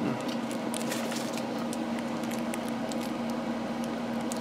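A steady hum with faint scattered clicks and soft mouth sounds of people chewing cream-filled sponge snack cakes (Twinkies).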